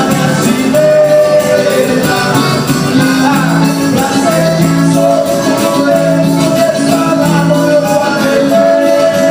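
A band playing music, with singing and several instruments holding notes and carrying a melody.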